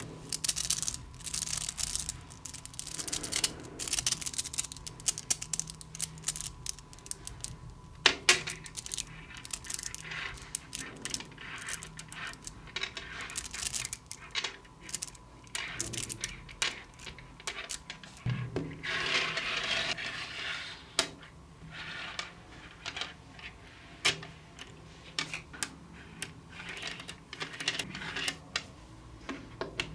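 Small metal magnetic balls clicking and rattling as they are pulled from a clump and snapped together into a flat strip. Many sharp single clicks, with busier stretches of rattling near the start and about two-thirds of the way through.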